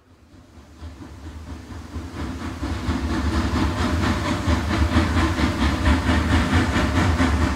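OO gauge model train, two locomotives double-heading a rake of coaches, running on the track: a steady low motor hum with regular clicking of wheels over rail joints, growing louder over the first few seconds as the train approaches and then holding steady.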